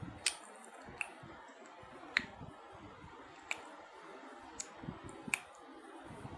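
A baby making sharp clicking sounds with its mouth: six single clicks at uneven intervals.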